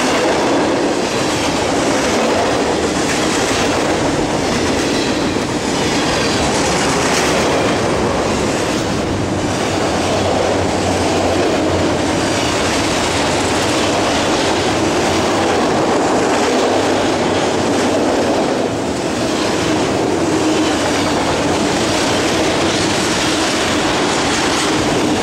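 Autorack freight cars of an auto train rolling steadily past, the wheels clattering over the rail joints in a continuous rumble.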